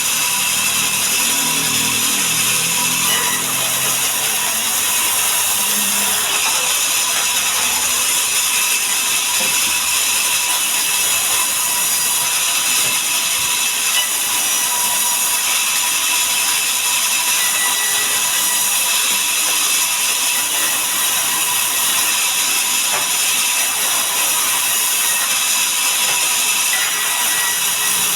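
Sawmill saw running steadily through mahogany timber: a loud, even hiss with a steady high whine.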